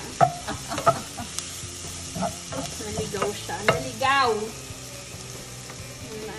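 Sliced onions and green chili peppers sizzling in a hot nonstick frying pan while a wooden spatula stirs them, clacking and scraping against the pan, for about the first four seconds. A brief pitched sound about four seconds in, after which the stirring stops and only the steady sizzle remains.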